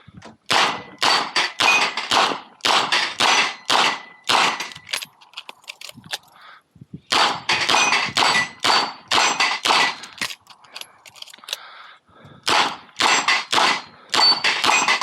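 Rapid strings of shots from a Smith & Wesson 929 revolver, with steel targets ringing as they are hit. The shots come in three bursts, broken by short pauses about five and eleven seconds in.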